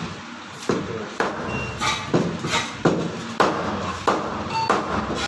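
Meat cleaver chopping a rohu fish into pieces on a wooden block: a series of sharp chops, about one every half second to a second.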